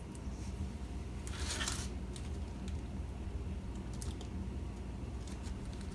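Faint clicks and a brief scratchy rustle about a second and a half in, from handling small aluminium peel-and-stick heat sinks as they are peeled from their backing and pressed onto a Raspberry Pi 4 board, over a steady low hum.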